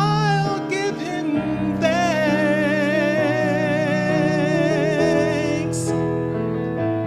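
Gospel song: singing with vibrato over instrumental accompaniment, with a long held note from about two seconds in.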